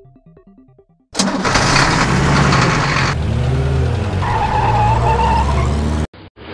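Engine sound effect for a cartoon monster truck: about a second in an engine starts with a loud burst, then revs with its pitch rising and falling, and cuts off suddenly near the end.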